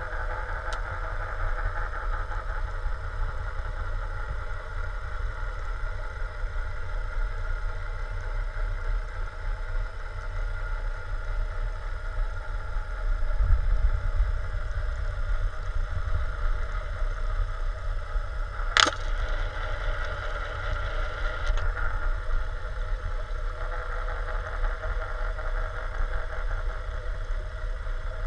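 Underwater ambience: a steady drone from a distant boat motor carried through the water over a low rumble. One sharp click comes about two-thirds of the way through.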